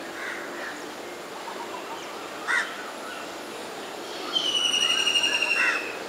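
Black-rumped flameback woodpecker giving its rattling call: a fast run of harsh, evenly spaced notes, about ten a second, lasting over a second and falling slightly in pitch, starting about four seconds in.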